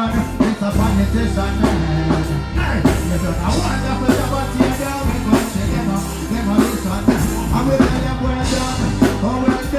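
Live reggae band music through a large PA, with heavy bass and a steady drum beat, and a male vocalist singing into a microphone over it.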